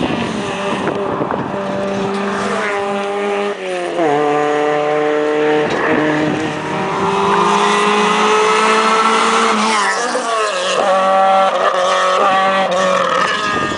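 Rally car engine, a Renault Clio, accelerating hard at full throttle, its note climbing in pitch and dropping sharply at gear changes about four seconds and ten seconds in.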